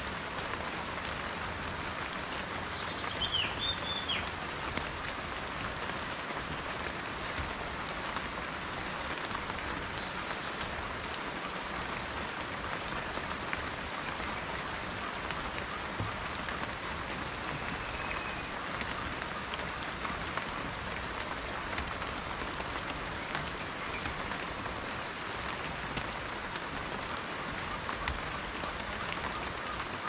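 Steady rain falling on dense tropical foliage: an even patter with scattered individual drop clicks. A short high bird chirp sounds about three seconds in.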